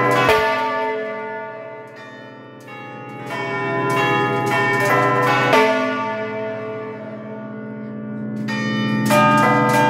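Large church bells of the Basilica dei Santi Gervasio e Protasio, played by ringers working the clappers by hand in a festive peal. Strikes of several pitches overlap and ring out. They come in clusters at the start, again about four to six seconds in, and near the end, with a lingering hum between them.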